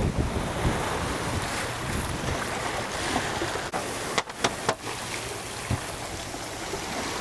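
Wind buffeting the microphone over water rushing and splashing past a sailing yacht under way in a fresh breeze. A few sharp clicks and a brief drop-out come a little past halfway.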